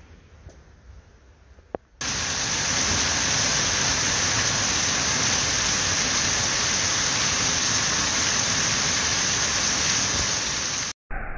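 Heavy rain falling steadily as a loud, even hiss. It starts suddenly about two seconds in, after a faint quiet stretch with a single click, and cuts off suddenly near the end.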